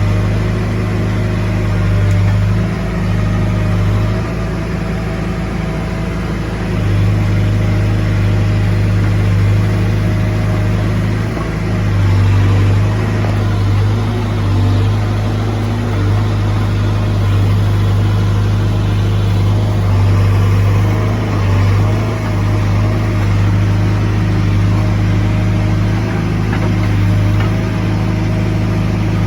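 Diesel engine of heavy earthmoving equipment running, its low drone swelling and easing as the load comes and goes.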